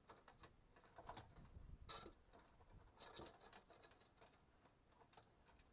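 Faint handling noises: the stereo's wiring and plastic head unit rustling and clicking as the cables are pushed back into the dash opening, with one sharper click about two seconds in.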